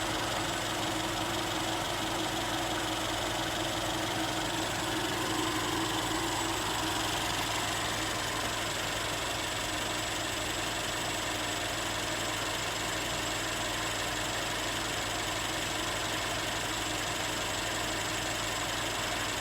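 An engine running steadily on a test run, with a thin high-pitched whine over it.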